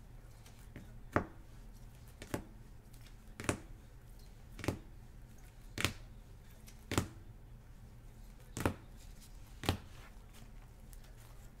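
Trading cards in rigid plastic holders clacking against each other as they are handled one by one: eight sharp clacks, roughly a second apart.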